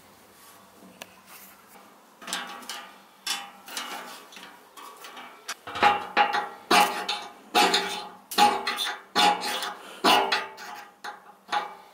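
Ferrocerium fire steel scraped hard and repeatedly over wooden kindling in a steel fire pan, a stroke roughly every 0.8 seconds from about six seconds in, each with a metallic ring. Before that, lighter knocks of kindling sticks being laid in the pan.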